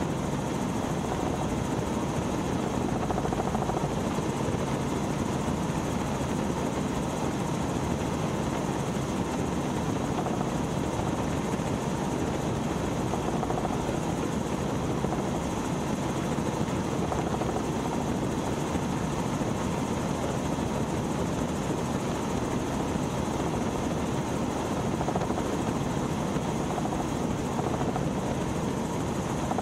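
Robinson R44 helicopter in steady cruise flight: continuous, unchanging rotor and engine noise.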